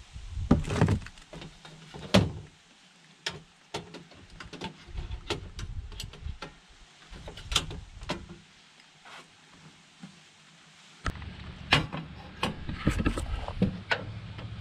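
Clicks, knocks and clatter of a portable butane camp stove being handled: its case lid moved, the gas canister fitted and a pot set on the burner. A steady low noise joins about eleven seconds in.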